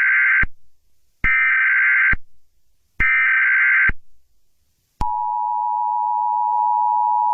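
Emergency Alert System SAME data tones: three bursts of about a second each, a second apart. Then the steady two-tone EAS attention signal starts about five seconds in.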